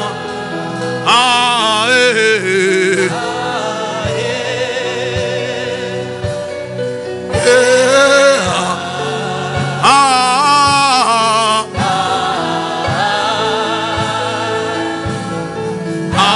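Gospel music: sung phrases with long, wavering held notes over sustained instrumental chords and a regular drum beat.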